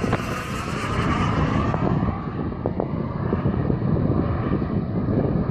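Jet aircraft engine noise with a faint whine that falls in pitch over the first two seconds, as the high end fades away, under heavy wind buffeting on the microphone.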